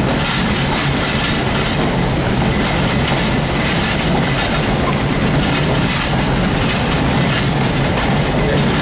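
Passenger train running along the line, heard from inside a coach at the window: a steady, even noise of the wheels on the rails.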